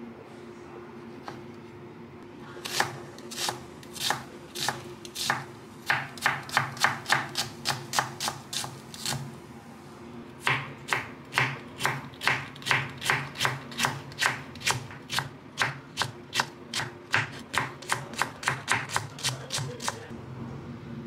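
A kitchen knife chopping onion and red cabbage on a wooden cutting board, each cut a sharp knock on the wood. A few scattered cuts give way to quick runs of about three or four chops a second, with a short break about halfway, and the chopping stops near the end. A faint steady hum lies underneath.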